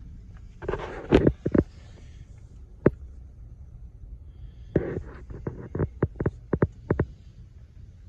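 Low steady rumble with irregular sharp clicks and knocks over it: a cluster about a second in, one near three seconds, and a quick run of about a dozen between five and seven seconds.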